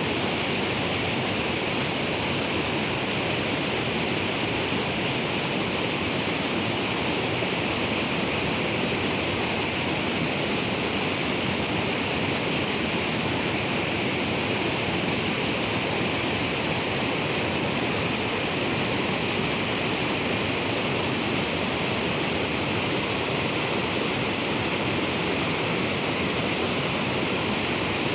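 River water rushing in a steady, unbroken roar of noise.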